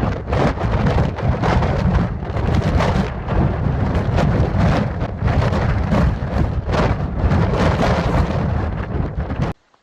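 Storm noise: a loud, dense rumble with constant crackling that cuts off suddenly near the end.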